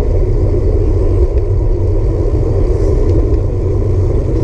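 Steady low wind rumble buffeting the microphone of a handlebar-mounted camera on a road bike riding at about 15 mph.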